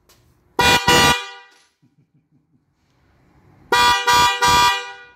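A pair of Seger electric car horns, a low-tone and a high-tone unit, sounding together in short honks: two quick blasts about half a second in, then three more near the end.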